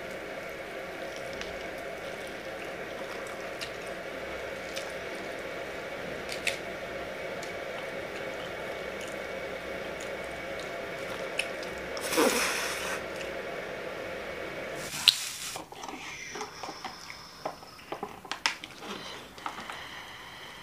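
Close-up eating sounds: wet, squishy chewing and mouth clicks from soft, cheesy bread, over a steady room hum. There is a louder brief rustle about twelve seconds in, and a sharp click about fifteen seconds in, after which the hum drops out and only scattered eating clicks remain.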